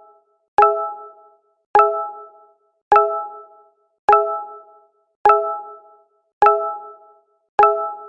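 Google Hangouts notification sound, a short pitched chime, repeating about once every 1.2 seconds. Each one starts sharply and fades out in about half a second, seven times over.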